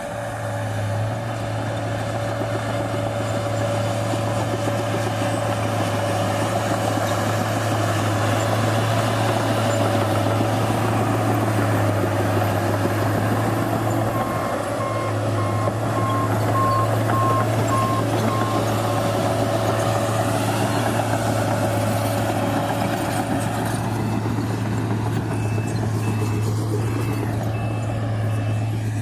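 New Holland D180C crawler dozer's diesel engine running steadily under work, heard from inside the cab. A reverse alarm beeps in a regular run from about halfway through, and again near the end at a higher pitch.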